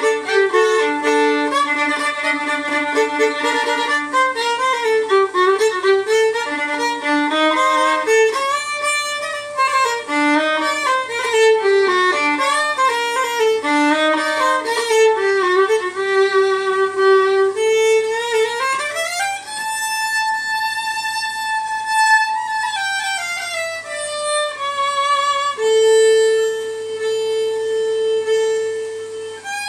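Solo fiddle playing a tune, bowed: a run of quick notes, then about two-thirds of the way through a slide up to a held high note, stepping back down to a long held low note near the end.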